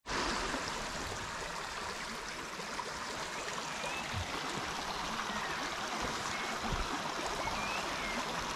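Shallow creek running low over stones, a steady trickling rush of water.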